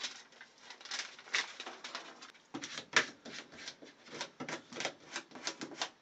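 Foil-faced duct board and foil tape being handled and pressed into place inside a metal air handler cabinet: irregular crinkling clicks and taps, coming faster in the second half, with one sharper knock about three seconds in.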